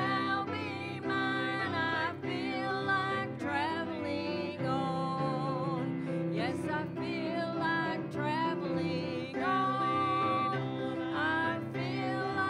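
A woman singing a slow song into a microphone over instrumental accompaniment.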